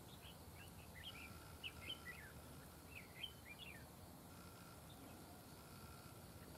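Faint, quick chirping whistles of red-whiskered bulbuls: a scatter of short rising and falling notes that trails off after about four seconds.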